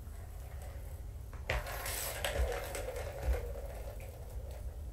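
Plastic three-tier cat ball-track toy rattling as it is moved, its balls rolling and clicking around the tracks, starting about a second and a half in and dying down near the end.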